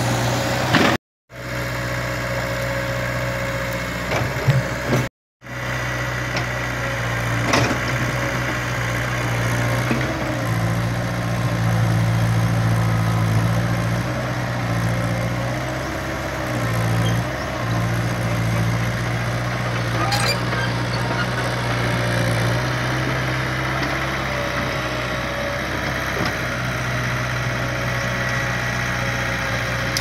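Kobelco SK03 crawler excavator's diesel engine running steadily while the machine digs, its pitch rising and dipping in the middle as the hydraulics take load. There are a few knocks of the bucket and earth, and the sound cuts out twice briefly near the start.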